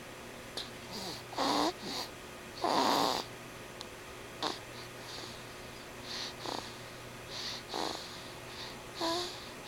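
Snoring in sleep: irregular rasping snores and snorts, roughly one every one to two seconds, the loudest about three seconds in. A brief pitched, voice-like sound comes near the end.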